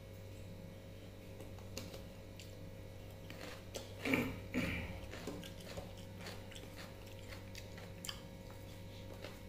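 Eating by hand: fingers mixing rice and fish curry on a plate and mouth chewing, small wet clicks and smacks. A louder mouth sound comes about four seconds in, over a steady low hum.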